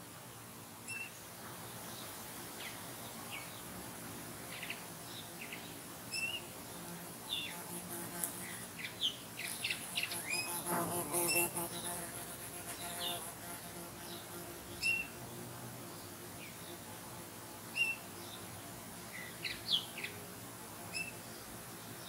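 Woodland songbirds calling: short, high chirps and twitters scattered through, busiest around the middle. An insect buzzes briefly a little past the middle, and a faint steady high hiss runs underneath.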